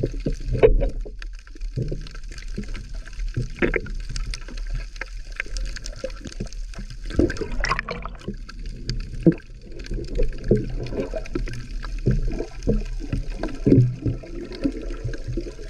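Muffled underwater sound picked up by a camera in a waterproof housing: water gurgling and sloshing, with irregular short knocks and bubbles over a low hum.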